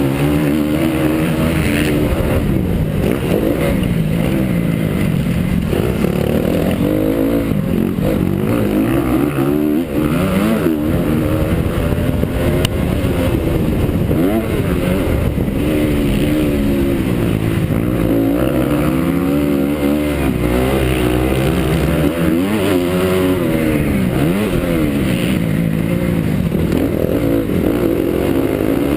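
Honda CRF250 four-stroke single-cylinder motocross engine at race pace, revving up and easing off again and again, its pitch rising and falling every second or two.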